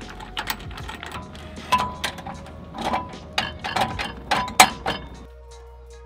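Irregular metal clanks and clicks from a boat trailer's tongue jack and hitch being worked by hand, some with a short metallic ring, over background music. The clanking stops abruptly about a second before the end.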